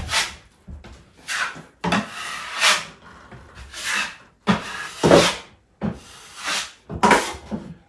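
Steel drywall knife scraping joint compound across drywall over screw holes, in about ten short, uneven strokes with brief pauses between them.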